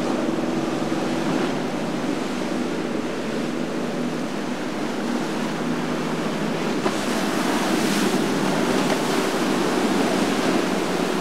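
Rough, churning canal water and waves rushing and breaking around a passing center console boat, under the steady hum of its outboard motor, with wind buffeting the microphone. The water rush grows brighter and louder about seven to eight seconds in.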